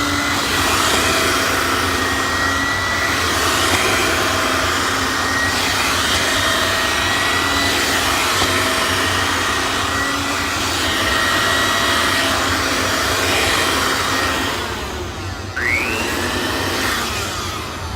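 Hoover Helpmate canister vacuum running steadily, its motor giving a constant rush of air with a steady high whine. Shortly before the end the sound drops and fades away.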